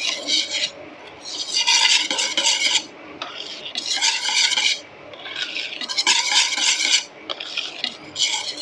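Wire whisk beating pancake batter and melted butter in a stainless steel bowl, the wires scraping and clattering against the bowl in quick strokes. It comes in bursts of about a second, roughly every two seconds.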